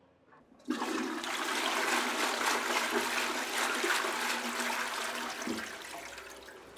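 Toilet flushing with a hand held down in the bowl: the water rushes in suddenly about a second in, then dies away slowly near the end.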